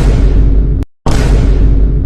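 The vine boom sound effect played on a loop: a deep, loud boom with a sudden start ends just under a second in, then after a brief silence another boom hits about a second in.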